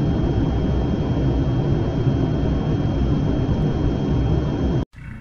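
Jet airliner engines in flight: a loud, steady, deep rumble that cuts off suddenly near the end.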